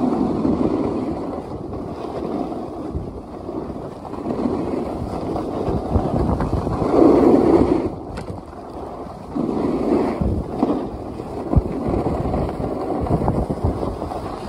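Wind buffeting the microphone of a phone carried down the slope, mixed with snowboard edges scraping and hissing over snow. The rush rises and falls every few seconds with the turns, loudest about seven seconds in.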